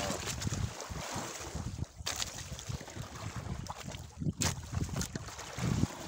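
Wind buffeting the microphone over water lapping against a small fishing boat, with a few sharp knocks.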